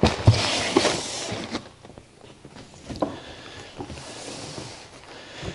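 Cardboard box of paper-wrapped frozen meat packages being pushed onto a chest freezer lid, scraping and rustling for the first second and a half. Quieter handling of cardboard boxes with a few light knocks and clicks follows.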